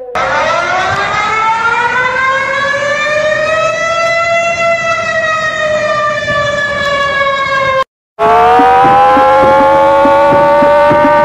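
Emergency warning siren wailing: one tone with several overtones slowly rises, then sinks gently. It cuts out about eight seconds in, and a second siren starts, rises and holds steady over a fast, even clicking.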